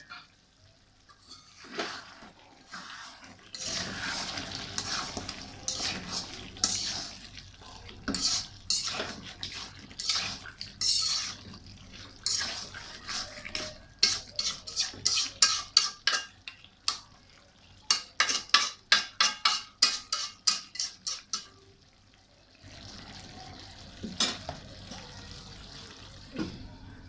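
A spoon stirring and scraping food in a cooking pot, with clinks against the pot; in the middle come two runs of quick, even strokes, about three a second.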